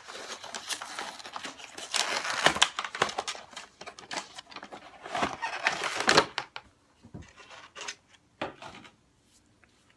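Packaging crinkling and rustling along with clicks and knocks of handling, busy for about six and a half seconds, then a few faint knocks.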